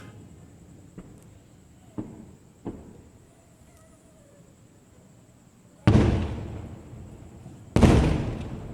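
Fireworks shells going off: three small sharp pops, then two loud booms about two seconds apart, each trailing off in a rumble.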